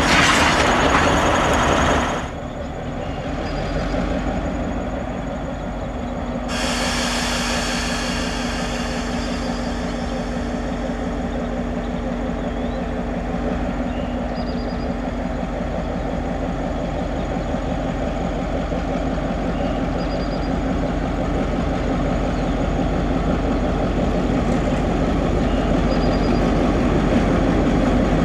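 EMD GP7 diesel-electric locomotive with its 16-cylinder two-stroke EMD 567 engine, running as it hauls a passenger train slowly toward the listener, growing gradually louder. It opens with about two seconds of loud rushing noise that cuts off abruptly.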